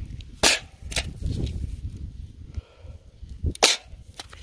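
A Gopher Hawk gopher trap being handled and pulled from the soil: a few sharp snaps and clacks, one about half a second in, another about a second in and a close pair about three and a half seconds in, over a low handling rumble.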